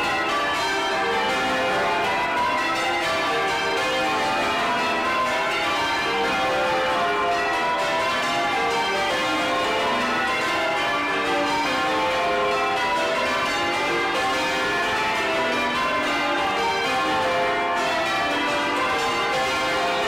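The 1932 Taylor ring of twelve church bells, tenor in C, ringing full circle, heard up close from inside the bell chamber. The bells strike one after another in quick, even succession, and their tones overlap in a constant clangour at a steady level.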